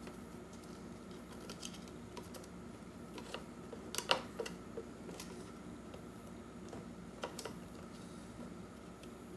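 Scattered light plastic clicks and taps of small wire connectors being pushed into the sockets of a Roomba circuit board, the loudest few about four seconds in.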